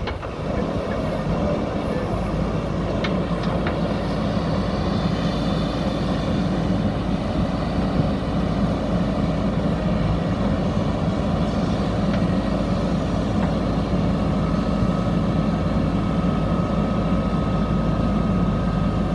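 JCB 3DX backhoe loader's diesel engine running steadily while the backhoe arm works, swinging and lowering its bucket onto a concrete culvert pipe. A thin steady whine comes in near the end.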